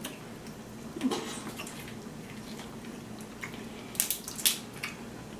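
Soft, wet eating and food-handling sounds from a sauce-covered seafood boil, with a few sharp clicks about a second in and twice around four seconds in.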